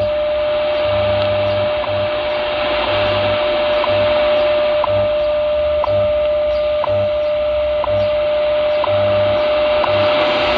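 WWV time signal on 15 MHz shortwave, heard through a Tecsun H-501X receiver's speaker. A steady tone carries a short tick once a second, with low pulses of differing lengths of the time code underneath, all over a bed of shortwave static hiss.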